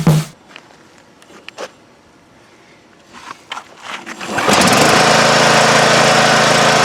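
Lawn mower engine starting up about four and a half seconds in, catching at once, then running loudly and steadily.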